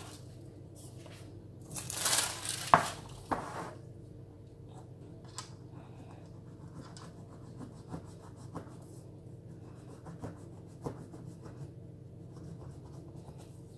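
Knife cutting layered baklava pastry in a round metal baking tray: soft scrapes and light taps of the blade. About two seconds in there is a louder rustle lasting about a second and a half, with one sharp click, over a faint steady hum.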